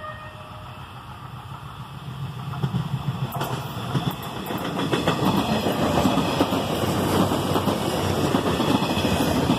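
Passenger train approaching and passing close by, its rumble growing louder over the first few seconds, then steady wheel-on-rail noise with rapid clicks of the wheels over the rail joints.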